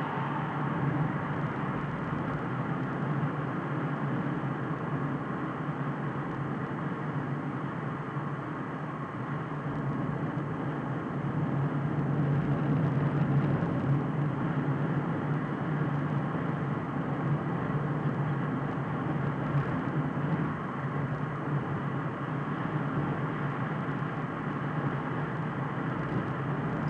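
Steady road noise of a moving car heard inside its cabin, a low hum of engine and tyres that swells a little around the middle.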